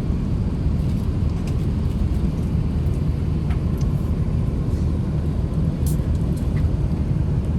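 Steady low cabin rumble of an Airbus A380 in flight, engine and airflow noise with faint clicks of cabin activity.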